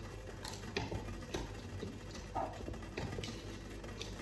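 Wooden spoon stirring risotto in a stainless steel pot, with irregular light scrapes and knocks against the pot about every half second, over a steady low hum.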